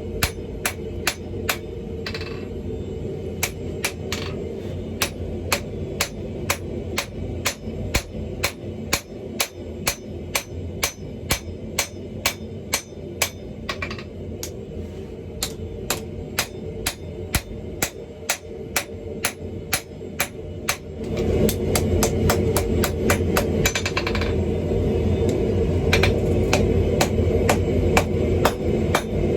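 Steady hammer blows on steel while the steel ball bearing is forged, about two strikes a second in an even rhythm. A steady low rushing noise runs underneath and gets louder about two-thirds of the way through.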